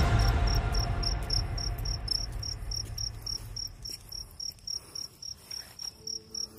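An insect, cricket-like, chirping in a steady run of short high-pitched pulses, about five a second. The background music fades out over the first few seconds, and new music comes in near the end.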